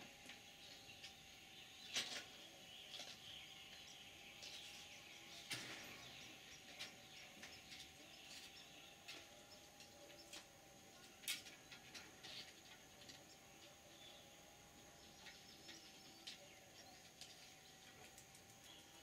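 Near silence with faint outdoor ambience: distant birds chirping now and then over a faint steady tone, broken by three sharp clicks or knocks spread through the stretch.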